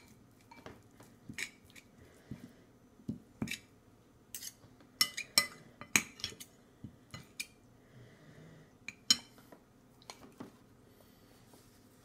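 Irregular clinks and knocks of a baby's spoon, bowl and plastic toy against a high-chair tray, a dozen or more sharp taps, clustered and loudest about five to six seconds in and again around nine seconds.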